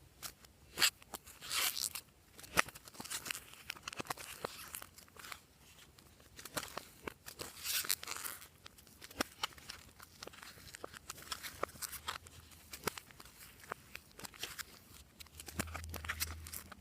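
Hands squishing, stretching and folding glossy slime: irregular sticky clicks and pops, with a few short crackling, tearing stretches.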